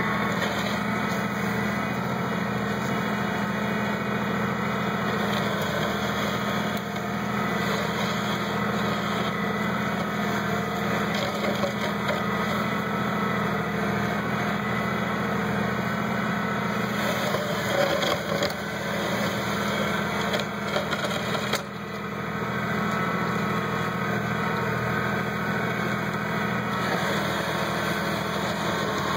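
Kubota B1700 compact tractor's three-cylinder diesel engine running steadily while it pushes snow, with a few brief louder knocks about two-thirds of the way through.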